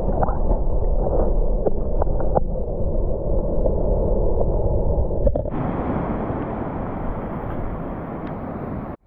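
Muffled rumble of shallow water sloshing over a camera held underwater in a rock pool, with small bubble clicks and pops. About five seconds in it turns into a brighter, steadier rushing.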